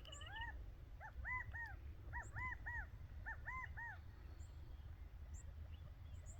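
Bird calling in three-note phrases of arched, mewing notes, given three times after a single rising note, which the recordist takes for a quail. Faint high chips of other birds and a low wind rumble sit behind it.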